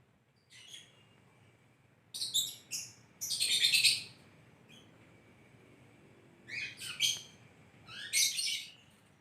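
Lovebird chirping in short bursts of high, shrill twittering, the loudest about three and a half seconds in, then a pause before a few more bursts near the end.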